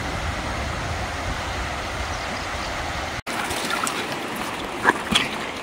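Steady rushing of river water. A low rumble lies under it for the first three seconds and stops abruptly at an edit, after which only the river is heard.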